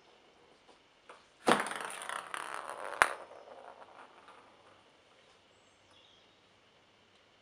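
A sudden rattling clatter of many quick small knocks, lasting about a second and a half and ending in one sharp click, then dying away.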